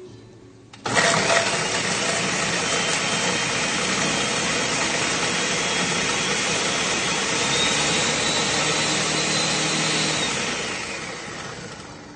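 Countertop blender grinding dried chile de árbol and puya chiles with salt and garlic powder. The motor starts abruptly about a second in, runs steadily at full speed with a faint whine, then winds down over the last two seconds.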